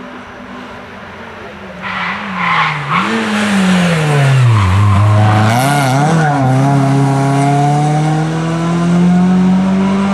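A rally car's engine slows hard for a bend, its revs falling with short throttle blips on the downshifts, then accelerates away with the pitch climbing steadily. About halfway through, the tyres scrabble and throw loose gravel as the car turns in.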